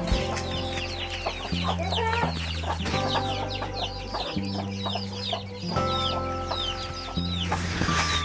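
Many chicks peeping rapidly and continuously, short high falling cheeps, over background music with sustained low notes.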